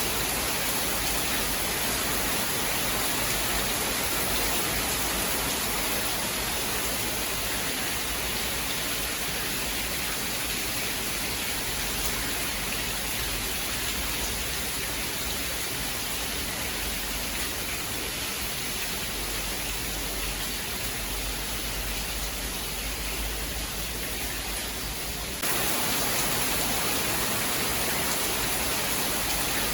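Steady rain, a dense even hiss with no distinct drops or thunder, that jumps suddenly louder and brighter about 25 seconds in.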